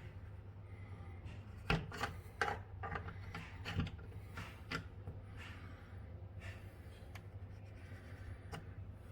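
Small metal tool scraping and clicking against a door peephole as it is turned to unscrew it: a cluster of scrapes and knocks about two to five seconds in, and one more click near the end.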